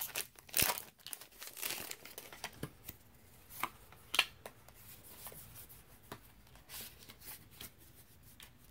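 Foil wrapper of a Pokémon trading card booster pack crinkling and being torn open, in scattered sharp crackles and rustles that thin out toward the end.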